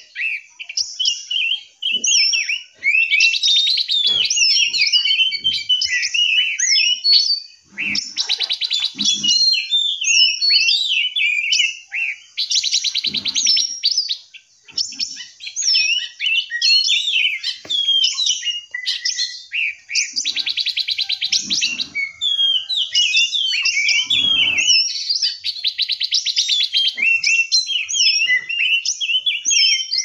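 Many caged songbirds in an aviary chirping and singing over one another in a dense, unbroken chorus. Rapid buzzy trills come in several stretches. Occasional soft low thumps are mixed in.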